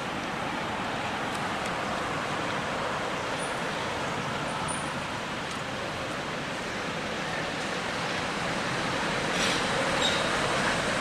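Steady outdoor background noise, an even hiss with no distinct source, with a few faint high chirps about four to five seconds in.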